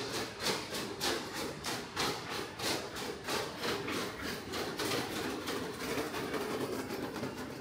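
Footsteps walking at a steady pace, about two steps a second.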